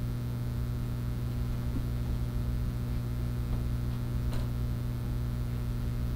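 Steady electrical mains hum, with one faint click about four seconds in.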